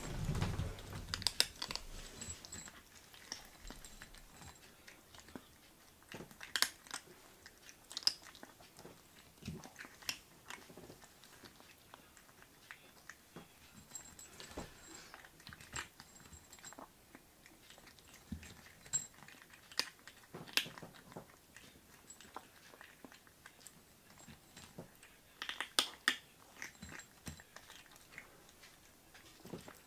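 Two kittens crunching dry kibble: sharp, irregular crunches, some louder than others, with short gaps between.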